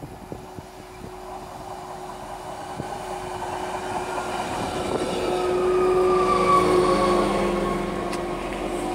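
Deutsche Bahn class 646 (Stadler GTW 2/6) diesel multiple unit pulling into the platform: its engine and running gear grow louder as it approaches and passes close by, loudest about six seconds in. In the second half a whine falls in pitch as the train slows.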